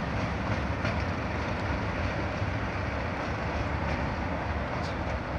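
Diesel locomotive engines running with a steady low rumble as Class 47 No. 47376 approaches hauling a train of oil tank wagons.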